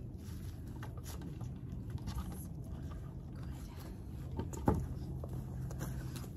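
Steady low outdoor rumble with light footsteps and rustling in dry leaf litter, and a single sharper knock a little past halfway.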